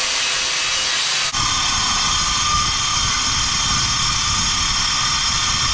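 Angle grinder cutting 3/16-inch steel plate, a steady hiss. About a second in it cuts abruptly to a metal-cutting circular saw running through the steel plate, a steady whine over a low rumble.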